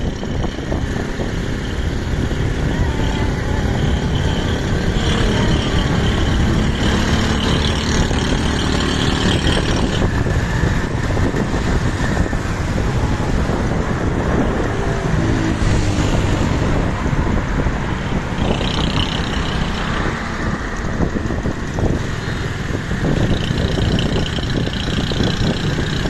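Steady, loud engine and road noise of a vehicle on the move, heard from on board, with wind buffeting the microphone.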